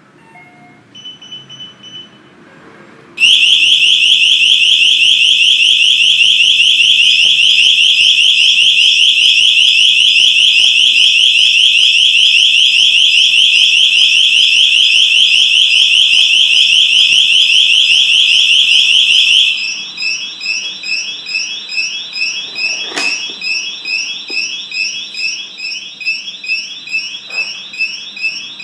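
A few short keypad beeps, then a wrong-PIN alarm: a loud, piercing electronic tone that warbles rapidly, set off by bad PIN codes entered on the smart door lock. After about sixteen seconds it drops to a quieter alarm beeping a few times a second.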